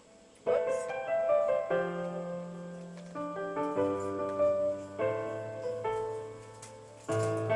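Piano music, slow and sustained notes and chords, starting about half a second in after a brief silence, with low held notes joining about two seconds in.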